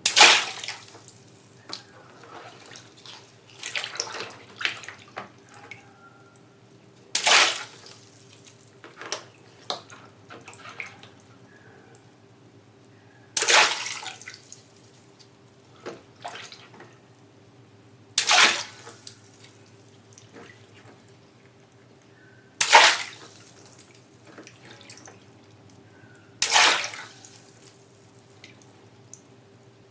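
Water-filled balloons bursting one at a time, six sharp pops each followed by a splash of water, with smaller splashes and drips in between.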